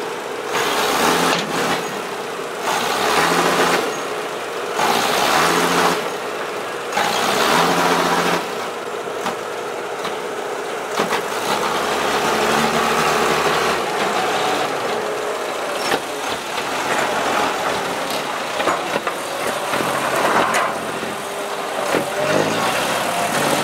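Diesel engine of a small six-wheel dump truck revving hard in repeated surges as it tries to pull out of deep mud, its rear wheels spinning free. After the first several seconds the engine runs more steadily, with changes in pitch near the end.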